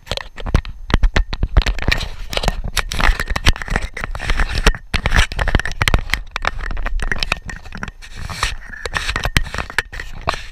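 Dense, irregular scraping, crackling and knocking from a chest-mounted GoPro as its wearer moves down a steep dirt trail: clothing and gear rubbing the camera housing, and feet scuffing the dirt.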